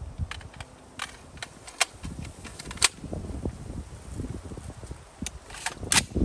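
Scoped AR-15 rifle fired several times, a series of sharp single shots at irregular intervals of a second or more.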